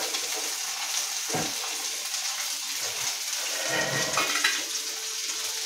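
Torrijas frying in melted butter in a pan: a steady sizzle, with a few brief thumps of a utensil handling them in the pan.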